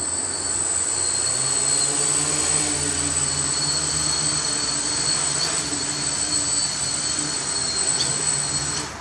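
Multirotor drone's electric motors and propellers running through a short, low hop: a steady high-pitched whine over a wavering propeller hum, with a small click near the end just before the motors cut off.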